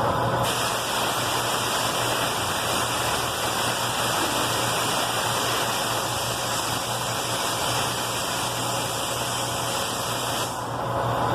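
Metal lathe running with a steady hum, and an even hissing that starts about half a second in and stops about a second before the end.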